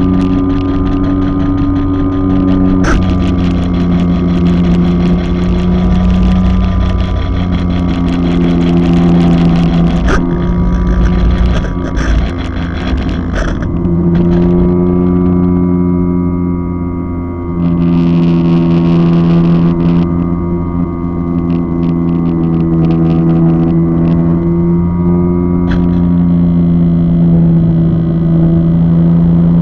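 RC airplane's motor and propeller, heard from the onboard camera, running steadily with its pitch stepping up and down every few seconds as the throttle changes, over a rush of wind noise.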